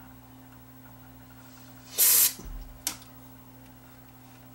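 Aerosol can of contact cleaner giving one short spray of hiss, about a third of a second long, about two seconds in, followed by a sharp click a little before the three-second mark. The cleaner is being sprayed into the monitor's oxidised input selector switch, suspected of causing the picture instability.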